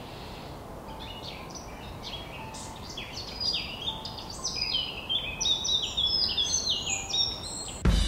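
Many small birds chirping over a steady low background noise, the short falling chirps growing denser and louder toward the end. Drum-led music cuts in abruptly at the very end.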